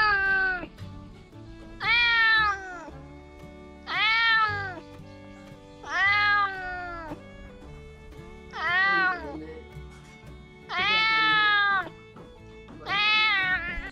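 A domestic cat meowing over and over: seven loud meows about two seconds apart, each rising and then falling in pitch, the one about eleven seconds in held longest. Soft background music with held notes plays underneath.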